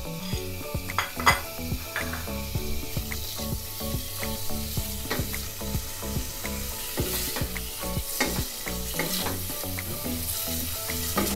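Marinated chicken pieces frying in a tablespoon of oil in a pan on medium-low heat: a steady sizzle with frequent sharp taps and scrapes from stirring.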